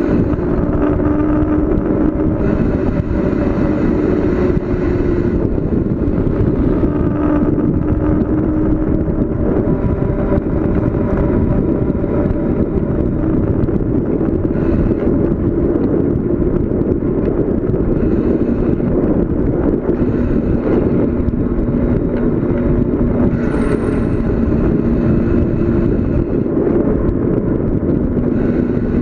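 Steady loud rush of wind and road noise from a bicycle coasting fast down a mountain road, with a wavering low hum running through it.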